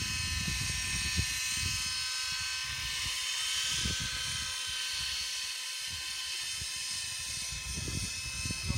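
GAUI NX4 radio-controlled helicopter running steadily with a high, multi-toned whine from its rotor drive, with strong wind buffeting the microphone in gusts.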